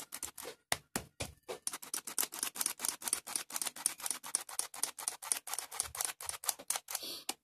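Metal flour sieve being shaken and tapped over a bowl, a rapid, even rattle of several strokes a second as flour falls into the batter.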